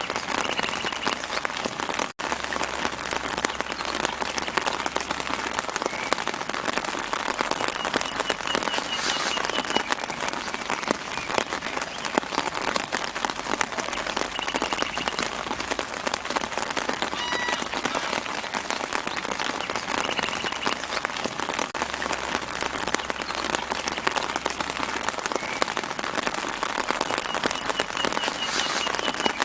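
Steady light rain pattering on leaves, a dense patter of many small drops. Short bird trills sound faintly in the background several times, and the sound cuts out for an instant about two seconds in.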